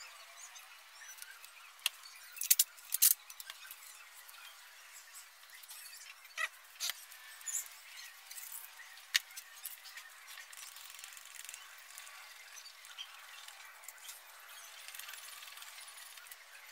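Fast-forwarded workbench handling sounds, pitched up and squeaky: several sharp clicks and knocks in the first half as a tape roll and tools are picked up and set down, then a faint scratching of pencil on paper near the end.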